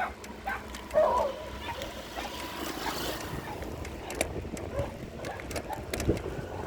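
Wind and road noise while riding, with a low hum and scattered sharp clicks and knocks, a rattle the rider guesses comes from the weight on the carrier.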